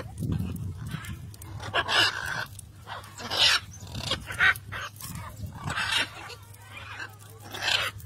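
Blue-and-yellow macaws giving harsh, raucous squawks, about five calls spread over several seconds.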